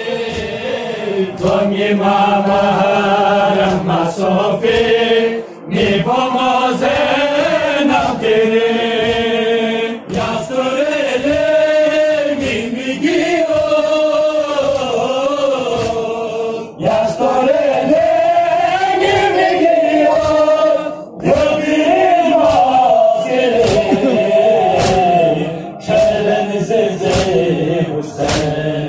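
A crowd of men chanting a Muharram noha in unison, in phrases that pause briefly every few seconds, with rhythmic chest-beating (matam) strikes under the chant.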